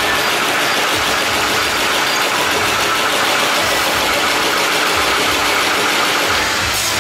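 Toilet brush tufting machine running with a steady, fast mechanical clatter.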